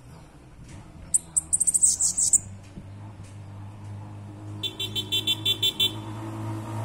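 Bananaquit singing two short runs of rapid, high-pitched notes, the first about a second in and the second near five seconds in. A vehicle engine hums underneath, growing louder toward the end.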